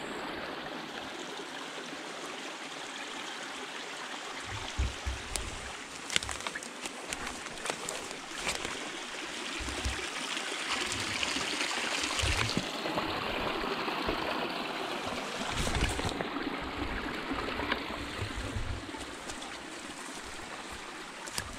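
Footsteps through wet woodland undergrowth, with irregular low thuds and sharp twig snaps, over a steady rushing noise from dry grass and branches brushing past.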